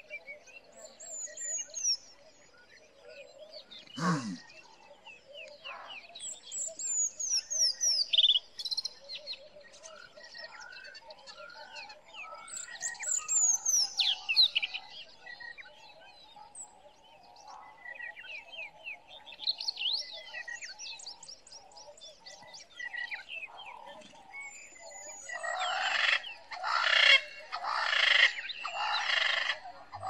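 Bushveld nature sounds: several birds calling in short descending whistled phrases over a steady pulsing chorus of frogs. Near the end a bird gives a run of about four loud, harsh calls.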